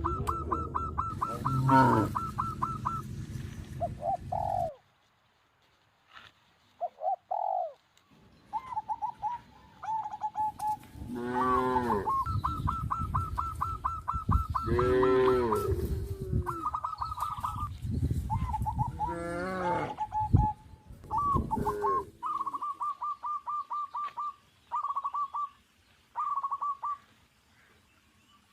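Farmyard animal calls: short trains of rapid, high trilling notes repeat again and again, broken by a few louder, drawn-out calls.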